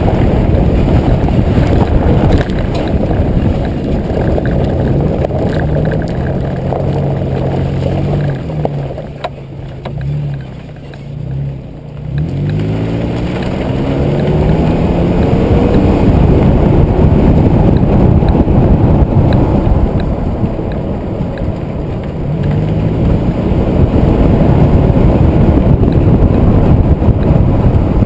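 2005 Nissan Xterra's 4.0-litre V6 engine and exhaust heard close up from the rear bumper while driving, under a loud low rumble. The engine eases off about nine seconds in, then revs up again around twelve seconds in and once more later on.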